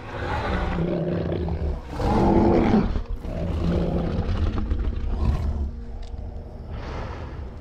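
Kong, the film's giant ape, roaring and growling: a deep, rough roar that swells to its loudest about two to three seconds in and dies down after about five seconds.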